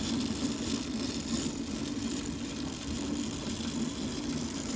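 1900 New Domestic treadle sewing machine running steadily, its bobbin winder pressed against the drive belt and spinning to wind thread onto the bobbin.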